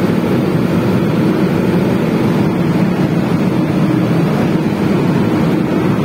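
Riello RS190 gas burner firing: the steady roar of its combustion fan and flame, with a faint steady hum running through it.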